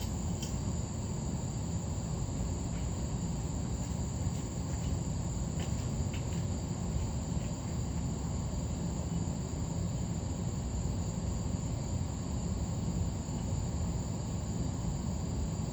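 1985 Hunter Original ceiling fan with a 1.1 amp three-speed motor, running steadily on low speed. It gives an even low hum of motor and moving air, with a thin steady high-pitched tone above it.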